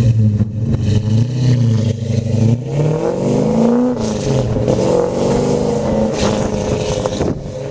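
1969 Chevrolet Chevelle SS V8 idling steadily behind the car, then revving up about three seconds in as it pulls away, its engine note climbing and dropping back repeatedly as it accelerates off down the road.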